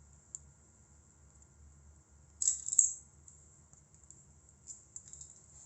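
Small metallic clicks and a brief rattle from a network cable stripper being worked on a UTP cable: one click near the start, a louder cluster of clicks about two and a half seconds in, and a few light ticks near the end, over a faint low hum.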